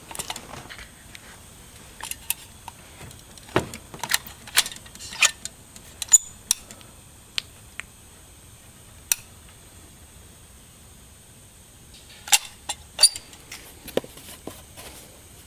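Irregular sharp clicks and light knocks of hand work with a caulking gun applying panel glue to plywood, with a faint steady high whine underneath.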